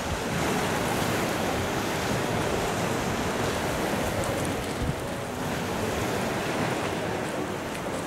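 Sea waves breaking and washing up a pebble beach in a steady surf, with some wind on the microphone.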